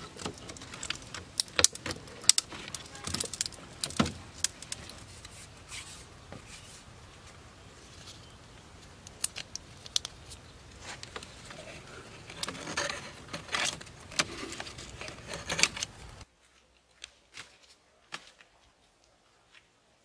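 A thin cane lashing strip worked around a bamboo-slat cage frame: irregular sharp clicks and clacks of cane and bamboo knocking together, with scraping and rustling as the strip is drawn through the slats. A little after three-quarters of the way in, it drops suddenly to near quiet with a few faint clicks.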